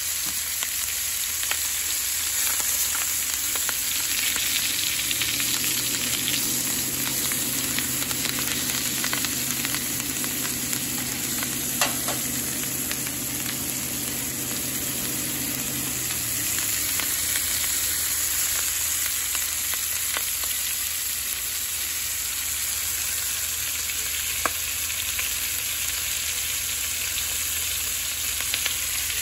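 Chicken leg quarters sizzling steadily in butter in a frying pan, with a couple of sharp pops of spitting fat.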